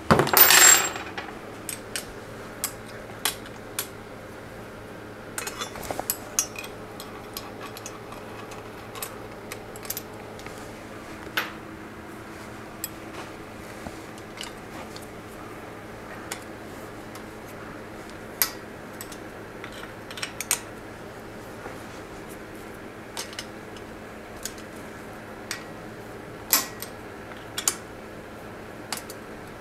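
Scattered sharp metal clicks and clinks of hand tools and bicycle parts being handled as the brakes and fork come off, opening with a short, loud rattle in the first second. A faint steady hum runs underneath.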